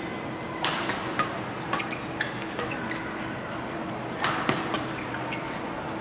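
Badminton rally: sharp racket-on-shuttlecock hits. The loudest come about half a second in and about four seconds in, an overhead smash, with lighter ticks between over a steady hall hum.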